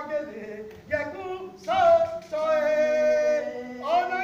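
Unaccompanied singing, without drums: a phrase of sung notes ending on a long held note about halfway through.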